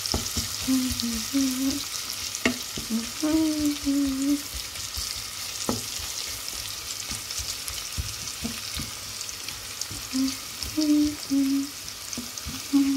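Bacon and onion frying in a pan, a steady sizzle, with a utensil stirring them and clicking against the pan now and then.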